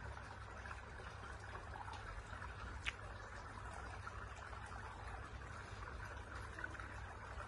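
Faint steady background hiss over a low rumble, with one sharp click about three seconds in.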